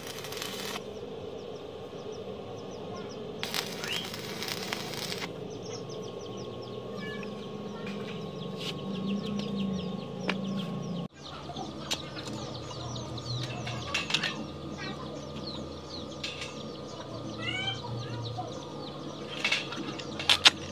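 Stick (shielded metal arc) welding on steel angle iron: the arc crackles in two short bursts of a second or two each in the first five seconds. After that birds call in the background, and there are a couple of sharp knocks near the end.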